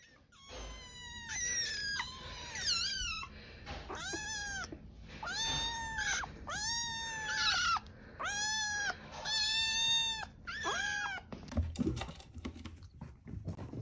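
Two 48-day-old kittens meowing from hunger: about eleven high, arched meows in quick succession, then a few knocks and thumps near the end.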